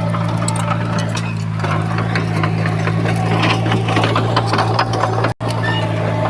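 Diesel engine of a heavy earth-moving machine running steadily, with scattered metallic clanks and knocks. The sound cuts out abruptly for a split second about five seconds in.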